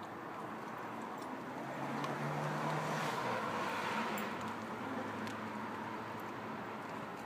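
A road vehicle going past: its noise swells to a peak about three to four seconds in and then fades, with a low engine hum under it. Faint sharp crunches from a vizsla chewing a chicken thigh are scattered through it.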